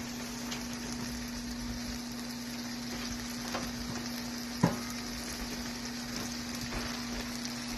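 Chicken Philly filling sizzling steadily in a frying pan, with one sharp clink of a utensil against the pan about four and a half seconds in. A steady low hum runs underneath.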